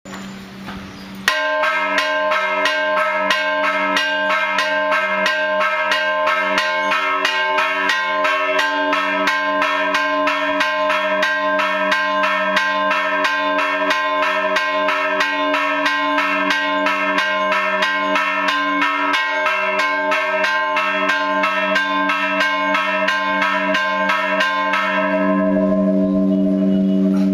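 Church bell chimed by hand with a rope on its clapper: quick, even strikes, about three a second, begin about a second in. The strikes stop near the end and the bell rings on.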